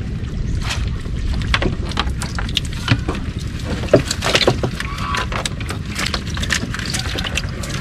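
Water splashing and sloshing with many sharp clicks and knocks as net fish traps are handled from a small boat, over a steady low rumble.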